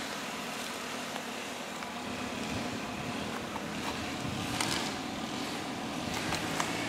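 Toyota Corolla's 1.8-litre VVT-i four-cylinder engine idling steadily, with a faint click about four and a half seconds in.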